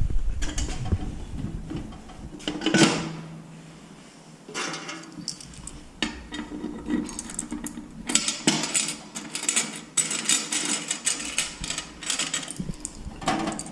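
Coins and metal parts clinking and rattling as a coin-operated candy vending machine is emptied: a run of quick small clinks, thickest in the second half, with a few louder knocks.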